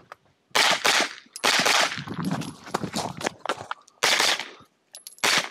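Pistol-caliber carbine firing a quick string of shots on a practical shooting stage, the loudest in two pairs early on, then quieter shots, a short break about three and a half seconds in while the shooter moves, and more shots near the end.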